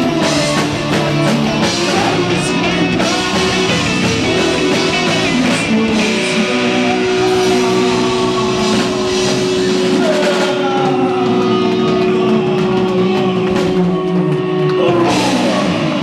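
Rock band playing live, loud and dense with drums. From about six seconds in, a long note is held under the band until the song closes with a final crash near the end.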